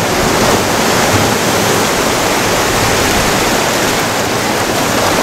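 Surf breaking and washing over the rocks of a rocky shore: a steady, loud rush of seawater.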